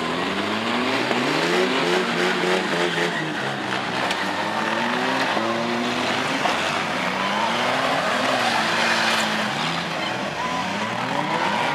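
Several demolition derby car engines revving up and down at once, the cars being driven hard around the arena.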